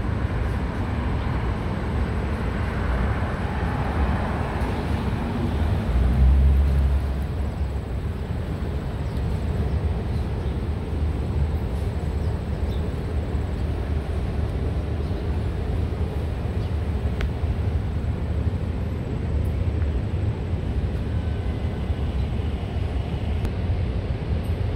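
Outdoor background noise: a steady low rumble, with a brief louder swell about six seconds in.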